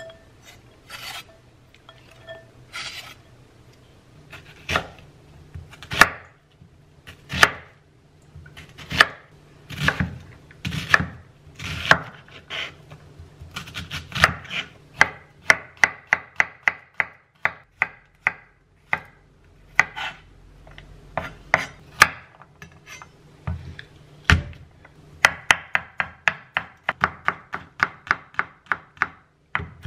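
Chef's knife chopping on a wooden cutting board as an onion is diced: single knocks about a second apart at first, then quicker runs of several knocks a second from about halfway, with garlic being minced near the end.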